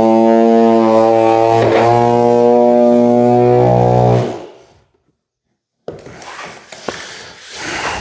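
Background music of sustained, held chords that change twice, fading out about halfway through. After a second of silence come scattered knocks and clicks.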